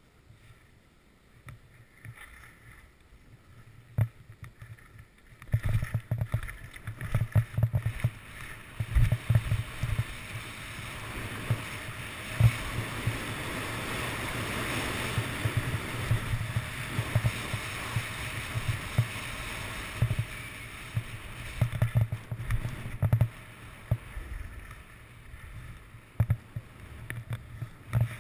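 Skis sliding and scraping over packed snow, with wind buffeting an action camera's microphone in low rumbling thumps. Quiet for the first few seconds, then louder from about five seconds in, the hiss strongest in the middle and easing near the end.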